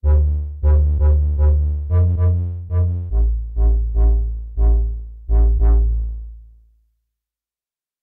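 FM synth bass preset 'FM Classic Simple' from UVI's Titanium bank for Falcon, playing a line of about a dozen short, hard-struck notes that each die away. The line drops to a deeper note about three seconds in, and the last note fades out near the end.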